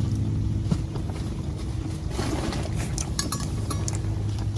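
A steady low mechanical hum, with a few light clinks in the second half.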